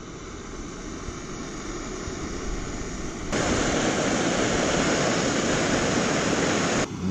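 Gas-canister camping stove burner hissing steadily under a pot, jumping louder about three seconds in and dropping back near the end.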